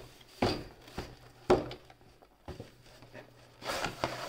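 Cardboard box being handled and opened: a few light knocks and taps of cardboard in the first couple of seconds, then rustling of the contents near the end as the lid comes open.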